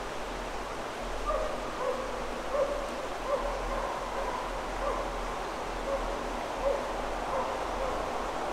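Distant beagle baying on a roe deer's track: short, faint bays repeating irregularly about once a second over a steady background hiss.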